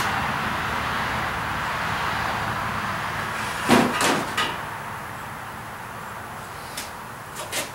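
Knocks and clicks from a battery charger being handled and set, the loudest a pair about four seconds in and a few lighter clicks near the end, over a steady rushing noise that fades away during the first few seconds.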